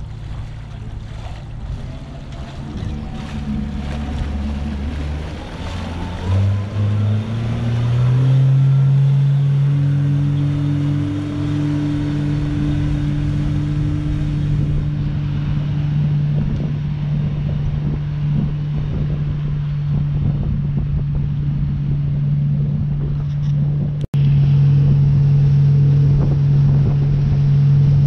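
Inboard engine of a small lobster boat throttling up, its pitch rising in steps over a couple of seconds, then running steadily at cruising speed with water rushing along the hull. The sound drops out for an instant about three-quarters of the way through.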